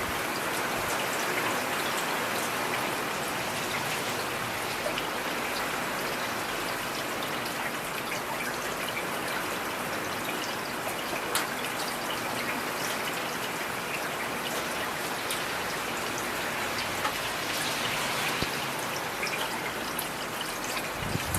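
Steady rain falling, with scattered individual drops ticking through it and one louder tick about halfway through.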